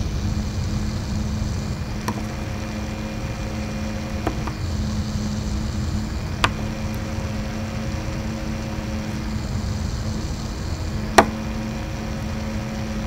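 Noctua NF-A6x25 FLX 60 mm fan running steadily: an even whir with a steady low hum. A few sharp clicks, the loudest a little before the end.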